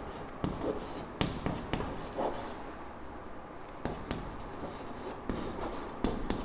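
Chalk writing on a chalkboard: scratchy strokes broken by sharp taps as the chalk meets the board.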